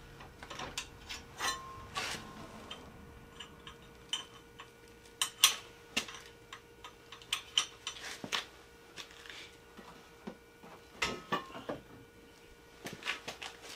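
Scattered, irregular light metallic clicks and knocks from the motorcycle lift jack's controls being worked by hand.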